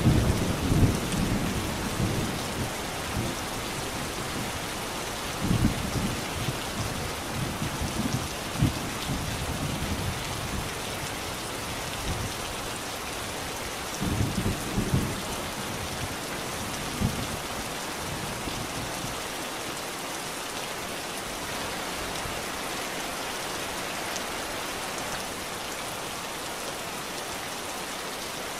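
Steady rain with a thunderstorm: an even hiss of rain throughout, with low thunder rumbles at the start and several more through the first half, the last a little past halfway, after which only the rain is left.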